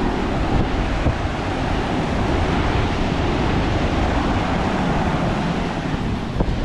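Surf washing on a beach, with wind buffeting the microphone: a steady rushing noise, heaviest in the low end.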